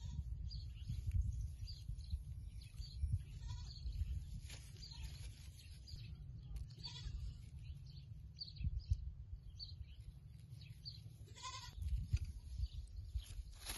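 An animal calling three times, short pitched calls a few seconds apart, over a steady low rumble.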